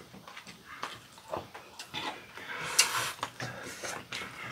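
Close-up eating sounds: chewing and small clicks of chopsticks and a spoon against ceramic bowls, with one louder, longer noisy sound just under three seconds in.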